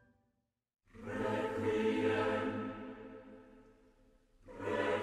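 Choral music: a held choir chord swells in about a second in and fades away, then a second chord swells up near the end.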